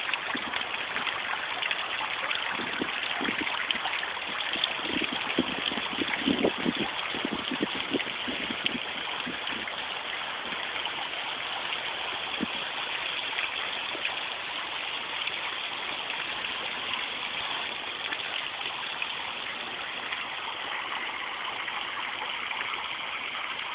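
Water from a pump-fed garden-pond waterfall running and splashing steadily into the pond, with lower gurgling sounds coming and going during the first nine seconds or so.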